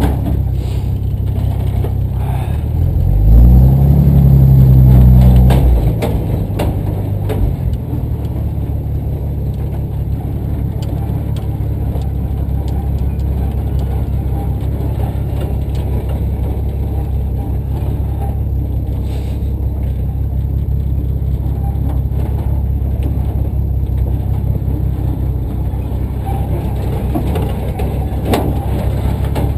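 1954 Dodge M37 Power Wagon's flathead straight-six engine running while the truck drives. About three seconds in it revs up for a few seconds, the loudest part, then settles back to a steady run.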